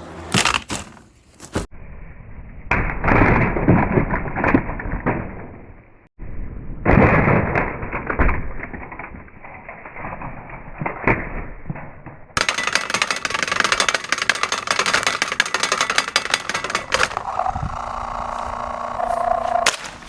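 A CoolMaster 20-inch box fan being smashed: dense cracking and breaking with repeated hard impacts. The sound comes in several short clips that cut abruptly from one to the next.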